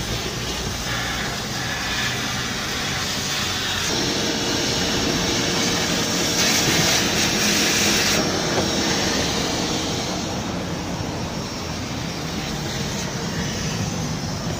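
Steady whooshing motor noise from a running machine such as a vacuum or blower. A faint steady whine joins it from about four seconds in until about ten seconds, with a brighter hiss for a moment in the middle.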